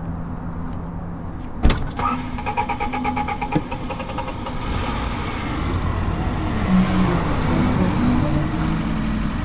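Car engine running nearby, with a sharp click about a second and a half in, a couple of seconds of rapid ticking after it, and the engine and road noise growing louder in the second half.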